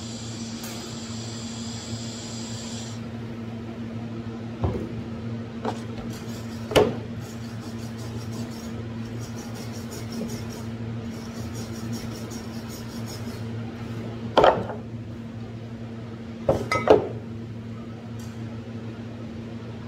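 TIG welding on aluminum: a high buzz that cuts off about three seconds in, then a steady low hum, with several sharp metallic clanks from metal being handled.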